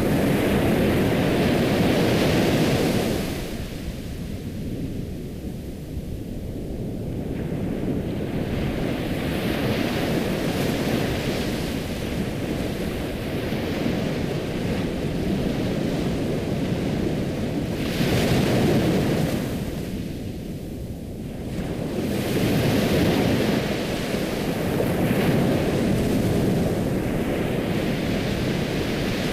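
Ocean surf: waves breaking and washing back, the rush rising and falling in slow swells several seconds apart.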